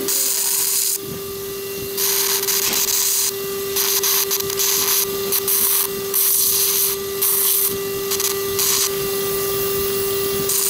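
Electrosurgical tonsil-dissection wand in use: the generator's steady tone runs throughout, and short bursts of hiss come and go every second or so as the wand works the tonsil tissue.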